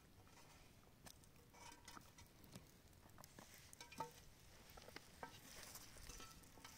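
Faint, scattered light taps and soft clicks of raw mushroom slices being dropped by hand into a clay cooking pot over a wood fire, with a faint hiss rising near the end.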